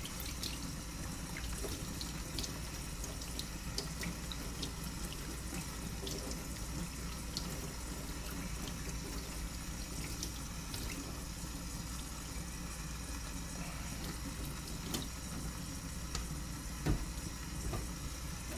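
Tap water running steadily into a sink, with scattered small clicks and knocks of handling and one louder knock near the end.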